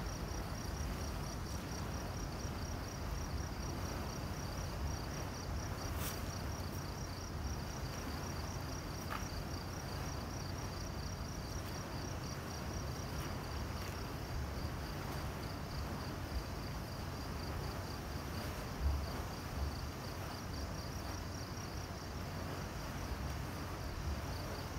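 Crickets chirping in a steady, even pulse at two close pitches, over a constant low rumble, with one sharp click about six seconds in.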